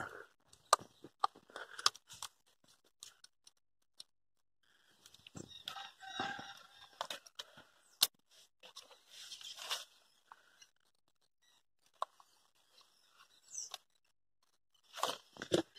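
Scattered clicks and scrapes of hands pressing the retaining clip onto a newly fitted engine coolant temperature sensor in a Ford Fiesta's engine bay. About six seconds in, a drawn-out animal call sounds in the background.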